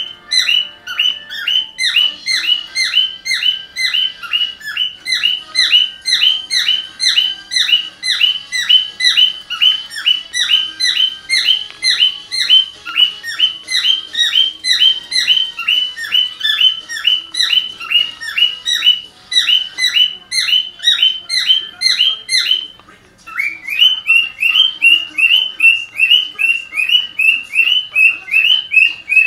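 Cockatiel mimicking a multi-tone car alarm: rapid, evenly repeated high chirps that run on for a long stretch. After a short break about three-quarters of the way through, it switches to a different sequence of rising-and-falling chirps, as a car alarm steps through its tone segments.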